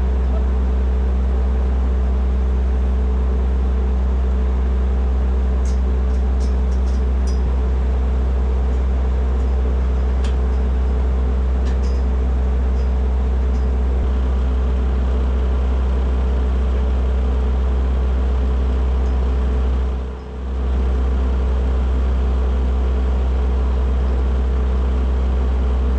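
An engine running steadily at a constant speed, with a loud low hum, a brief dip about twenty seconds in and a few faint ticks.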